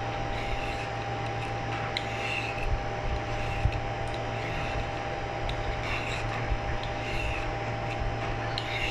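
Y-shaped vegetable peeler scraping ribbons off a white radish in soft, repeated strokes, roughly one a second, over a steady background hum.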